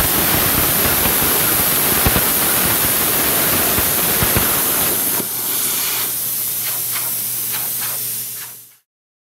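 CNC plasma torch cutting steel plate: a loud, steady hiss. About five seconds in it turns a little quieter, with a low hum and crackling pops, then fades out near the end.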